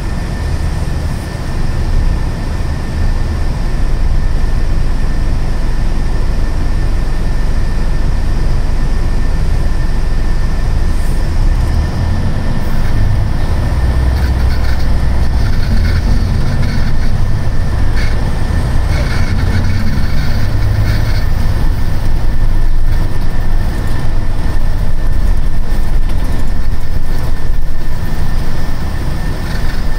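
Cabin sound of a Scania K310 coach on the move: the diesel engine's steady low drone mixed with road rumble, and a thin constant whine above it. The low engine note grows heavier for several seconds midway, then settles.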